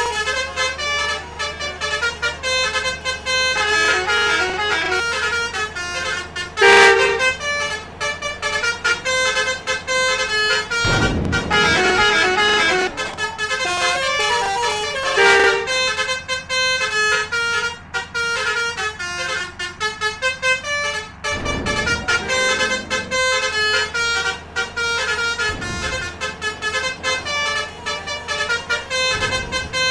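Telolet multi-tone horns (Basuri-type) playing quick stepped melodies over and over, several overlapping, with a loud blast about seven seconds in. Low engine rumble from passing vehicles swells up a few times.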